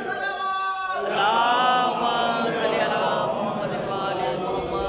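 A man's voice chanting a melodic Shia religious recitation into a microphone, holding a long steady note about a second in and then moving into sung, wavering phrases.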